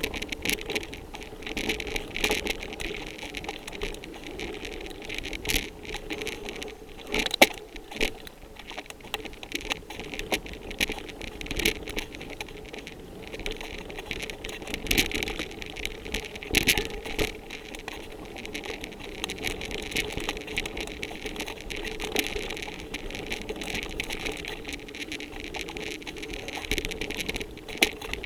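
Mountain bike ridden over a bumpy dirt trail: a continuous rattle of the bike and tyres over dirt and leaves, with frequent sharp clicks and knocks and a few louder clacks over bumps.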